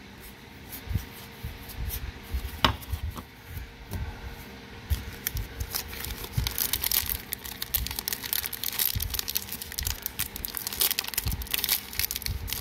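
Trading cards handled with soft knocks, then, from about halfway, the foil wrapper of a Magic: The Gathering draft booster pack crinkling and being torn open.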